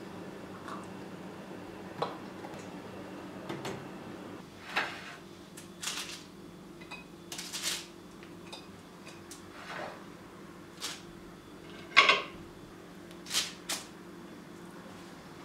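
Freshly baked coconut cookies being lifted off parchment paper in a glass baking dish and set on a plate: scattered light knocks, clinks and paper rustles, the sharpest knock about twelve seconds in.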